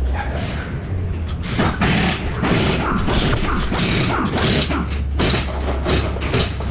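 Hand tools working on car suspension parts: a run of irregular mechanical clicks and metallic knocks over a steady low hum.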